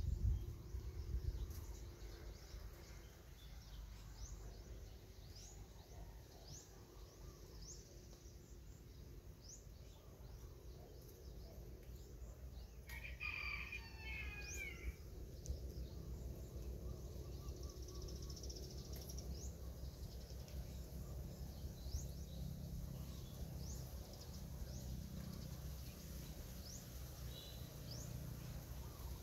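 Outdoor rural ambience: small birds give short, high, rising chirps on and off over a low rumble, and a chicken calls once, louder, about halfway through.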